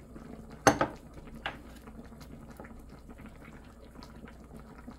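Kimchi stew simmering and bubbling in a pot on a portable burner. A quick pair of clicks, chopsticks against a bowl, comes about a second in, and a single click follows shortly after.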